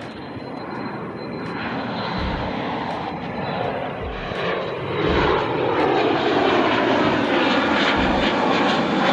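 Bombardier Challenger 350's twin Honeywell HTF7350 turbofans at takeoff power as the jet climbs out overhead, the roar building and growing loud, with a whooshing sweep that falls in pitch as it passes. The sound cuts off abruptly at the very end.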